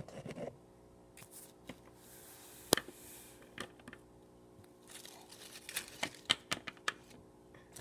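Handling noise of fingers moving plastic toy figures and artificial leaves close to the microphone: scattered small clicks and rustles, with one sharper click about two and a half seconds in, over a faint steady hum.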